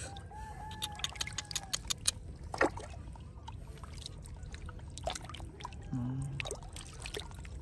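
Shallow water splashing and trickling in a woven bamboo basket as a hand stirs through it among koi and goldfish, with scattered small splashes and one sharper splash a little over two seconds in.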